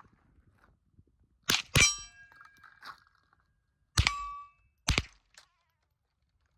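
Sharp metallic clanks, four in all, two of them ringing on briefly with a clear metal tone.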